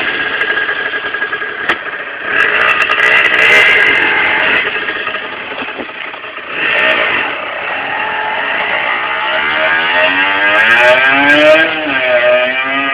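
Aprilia RS50's 50cc two-stroke single-cylinder engine running and revved in several swells, its pitch climbing and dipping in the last few seconds as the bike rides.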